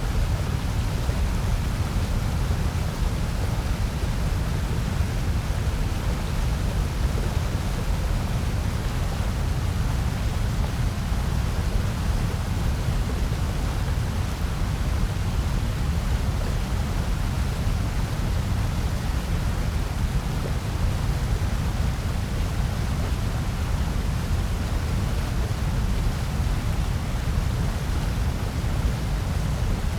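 Steady generated noise for sleep or focus, an even hiss and rumble with no changes. It is heaviest in the bass and thins out toward the treble.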